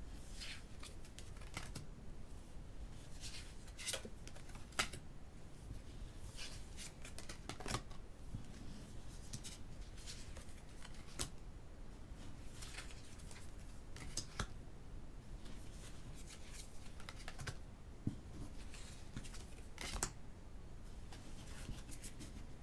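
Tarot cards being handled on a cloth-covered table: cards laid down, slid off one another and stacked, giving irregular short swishes and soft slaps of card stock, with a sharper click about five seconds in.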